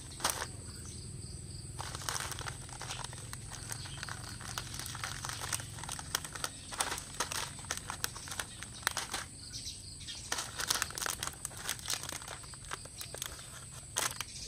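Foil potato-crisp packets crinkling as they are picked up and handled, in quick irregular crackles through most of the clip with a short lull in the middle. A steady high insect chirring runs behind.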